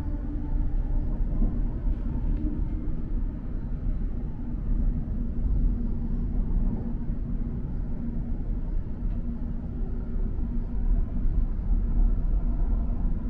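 Elizabeth line Class 345 electric train running between stations, heard from inside the carriage: a steady low rumble of wheels on track with a faint steady hum.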